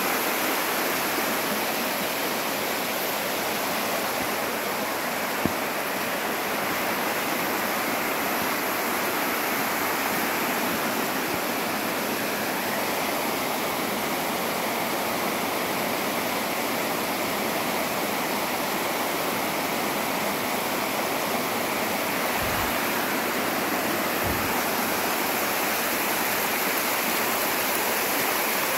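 Shallow whitewater rushing steadily down a broad bare rock slab at the top of a slide waterfall, an even, unbroken rush. A brief click about five seconds in and a couple of faint low bumps later on.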